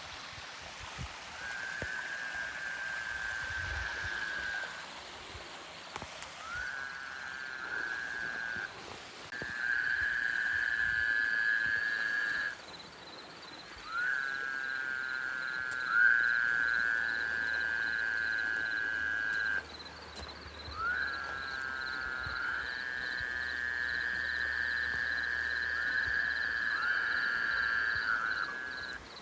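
Frogs calling in a chorus: long, steady, high trills lasting several seconds each, several voices overlapping and starting at different moments, with brief pauses between bouts. This is the 'screaming' night noise that turned out to be frogs.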